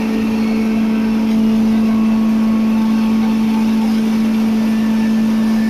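Hammer mill for grinding maize, belt-driven by a three-phase electric motor, running at full speed with a steady, loud hum.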